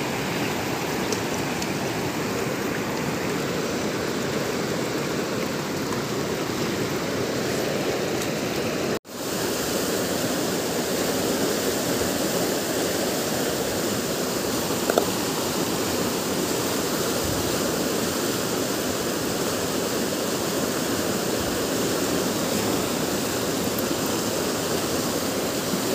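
Fast mountain river rushing over boulders: a steady, even sound of white water, broken by a brief silent gap about nine seconds in.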